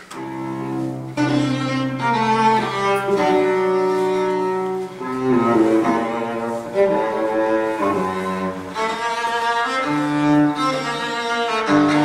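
Recorded bowed-string music with long held notes in a low, cello-like register and several lines sounding together. It is played back at a raised volume through Natural Sound 1 field-coil loudspeakers, each with a 15-inch Maxonic field-coil driver and a Maxonic compression tweeter, driven by 8-watt-per-channel push-pull tube amplifiers.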